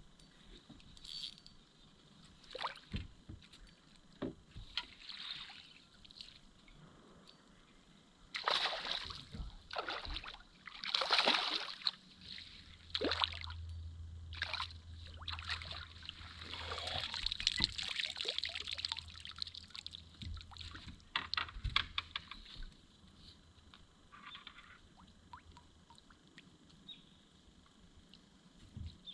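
Water splashing and sloshing in irregular surges around a small boat, with a low steady hum through the middle stretch.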